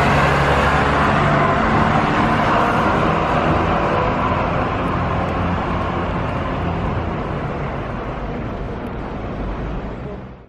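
City street traffic noise, engines and tyres of passing cars and buses with a steady low hum, slowly fading out and cutting off at the end.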